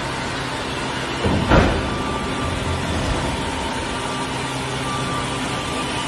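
Airbus A380 main landing gear extending during a gear swing test: a steady mechanical hum with a few steady tones, and a single knock about a second and a half in.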